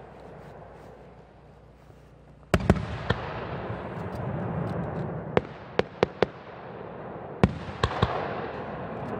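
Aerial firework shells bursting. The echo of an earlier burst dies away, then a sharp bang comes about two and a half seconds in, followed by a string of single sharp reports, each trailing off into an echo.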